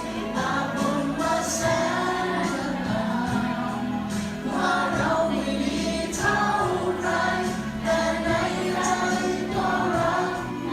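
A group of students singing a song together in chorus, in phrases of a second or two.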